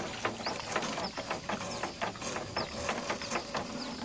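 Anchor rope being paid out by hand over the bow of a small boat, a run of irregular clicks and creaks with a few short squeaks.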